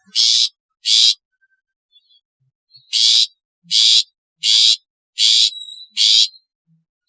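Long-tailed shrike (cendet) giving short, harsh, scratchy calls: two near the start, then after a pause of about two seconds five more, roughly one every 0.7 s. A faint thin whistle sounds between the last two.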